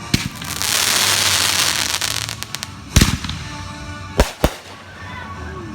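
Fireworks going off: a sharp bang, then about a second and a half of dense crackling, then a single loud bang about three seconds in and two quick bangs a little after four seconds.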